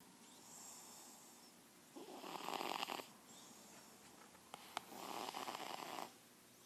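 A cat snoring in its sleep: two rattling snores about a second long each, with softer, hissy breaths between them. Two short clicks come just before the second snore.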